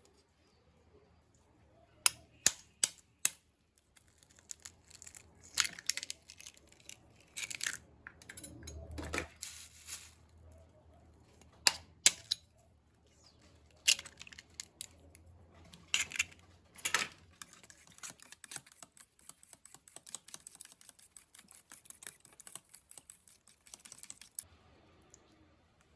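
A series of sharp clicks and knocks with some rustling, giving way after the middle to a long run of rapid light tapping.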